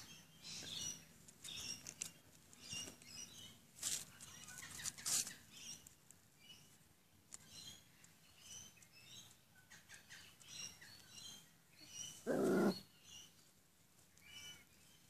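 Puppies almost three weeks old squeaking and whimpering, many short high-pitched squeaks one after another. A louder, lower sound comes about twelve seconds in.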